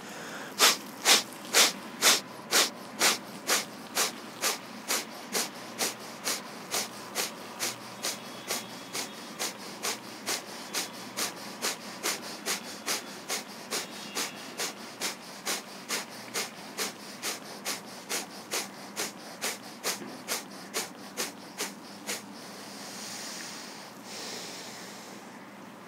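A man doing kapalbhati breathing: sharp, forceful exhalations through the nose, about two a second in an even rhythm, the double-speed pace of 120 strokes a minute. The puffs stop near the end and a long, slow breath follows.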